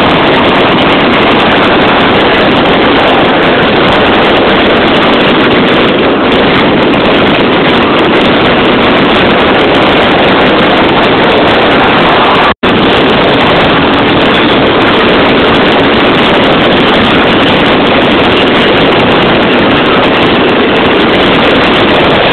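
Dense fireworks barrage, the bursts merging into one continuous loud, distorted noise that overloads the microphone, with a brief dropout just past halfway.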